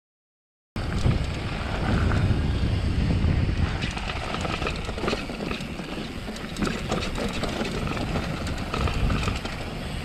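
Mountain bike riding down a dirt forest trail: tyres rolling and crunching over the ground, with rattles and clicks from the bike over bumps and a steady low rumble. It starts abruptly under a second in, after silence.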